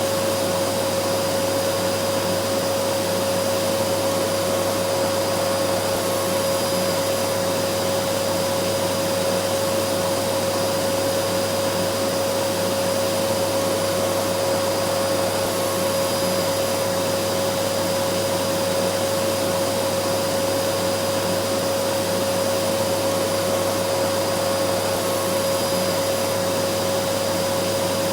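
Vacuum cleaner running steadily: a constant rushing noise with a steady motor whine, unchanging throughout.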